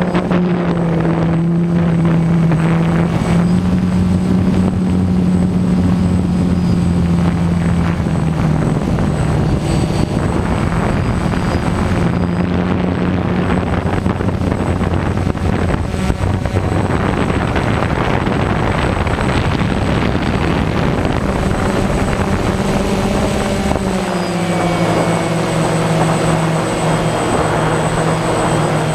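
DJI Phantom quadcopter's motors and propellers humming steadily in flight. Their pitch shifts a little lower near the end.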